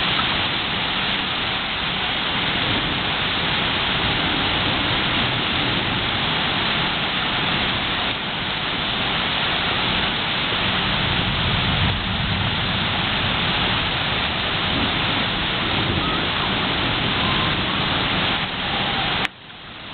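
Heavy thunderstorm rain pouring steadily, with a low rumble of thunder swelling partway through. The sound cuts off abruptly near the end.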